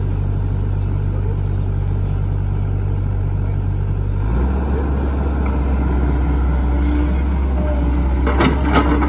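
Crawler excavator's diesel engine running steadily. About four seconds in, its note drops lower and grows heavier as the arm swings the bucket down. A few sharp knocks come near the end.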